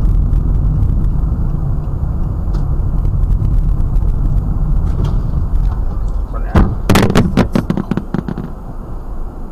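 Steady low rumble of a car's engine and road noise inside the cabin, then about six and a half seconds in a crash: a bang followed by a quick series of clattering impacts for about two seconds as vehicles collide.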